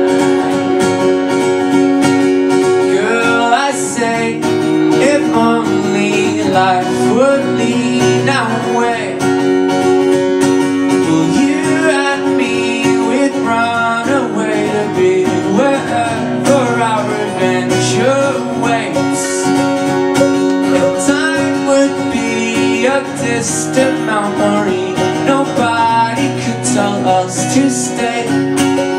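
Live acoustic folk band: a man sings over a strummed acoustic guitar, with banjo and mandolin playing along. The singing comes in a few seconds in.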